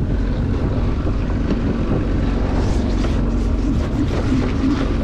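A boat's outboard motor running steadily at low revs.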